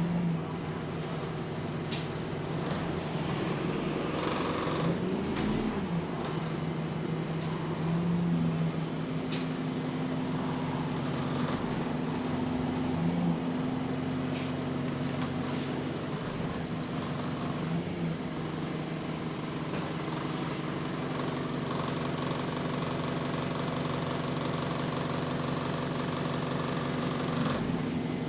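Diesel engine of an Alexander Dennis Enviro400 MMC double-decker bus running with a steady drone, heard from on board. Brief swells in pitch come every few seconds.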